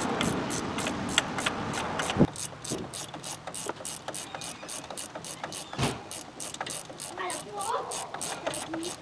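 Hand ratchet wrench clicking fast and evenly as it runs in the hub-assembly mounting bolts on a 2016 Ford Fusion's front hub. For the first two seconds a louder rushing noise sits under it and stops with a knock.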